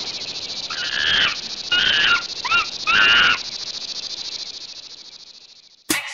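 Four monkey calls, each about half a second long, over a fast-pulsing high buzz that fades away. A beat-driven music track cuts in near the end.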